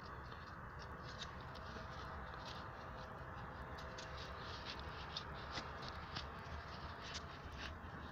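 A rag rubbing and wiping over the engine's cylinder-head surface where the valve cover seats, giving faint scratchy rubbing with scattered light ticks over a steady hiss.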